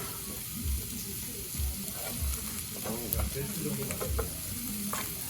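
Food sizzling and frying in a hot pan, a steady crackling hiss. Soft background music with a low, regular beat runs under it.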